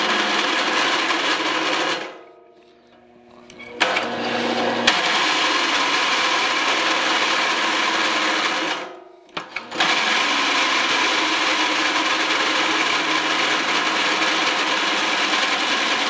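A 1-inch twist drill in a drill press cutting through cold-rolled steel bar with a steady grinding cut. The cutting sound drops away twice for a moment, about two seconds in and again near nine seconds. The spindle is turning a little fast for a bit that size.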